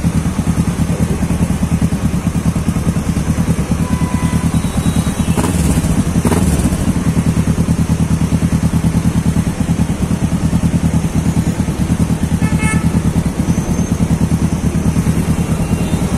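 Motorcycle engine running at low speed in slow traffic, a steady low pulsing throb. A short vehicle horn beep sounds about three-quarters of the way through.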